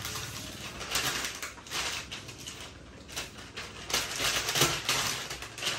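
Rustling of paper wrapping and cardboard packaging being handled, with irregular light clicks and taps as pieces of the laptop box are moved.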